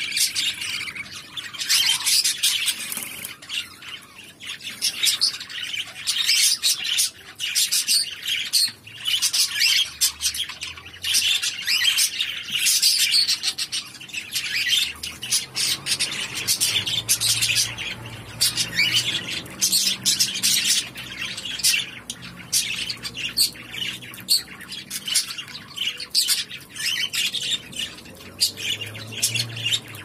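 Budgerigar nestlings calling, a continuous stream of short, raspy, high-pitched chirps and squawks.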